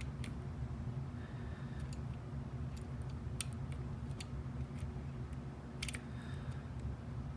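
Light, irregular clicks of a dimple pick tapping the pins inside a Yale Superior dimple lock, probing each pin in turn, over a steady low hum.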